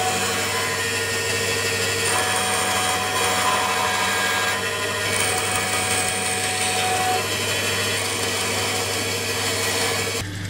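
Bandsaw running steadily and cutting a small block of wood, a constant motor hum under the hiss of the blade in the wood.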